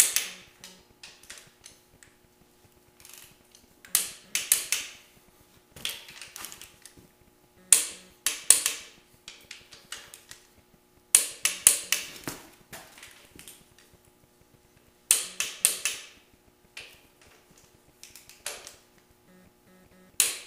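Torque wrench ratcheting on the cylinder head bolts of a Ford 400 V8: short bursts of quick, sharp clicks about every three to four seconds, one bolt after another drawn down at the first torque stage of 75.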